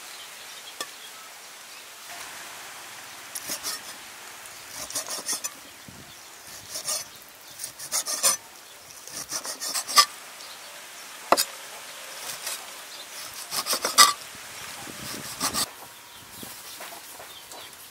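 Large cleaver chopping raw beef stomach on a wooden chopping block: irregular clusters of sharp knocks, with scraping between them.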